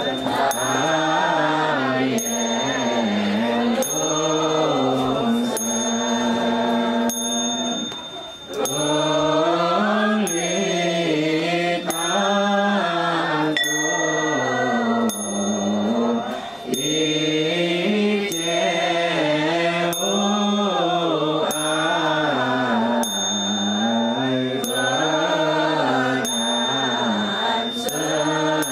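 Buddhist monks chanting a funeral chant together, the melody rising and falling, with short breaks for breath about eight and sixteen seconds in. A light, high ring or tick repeats about once a second under the chanting.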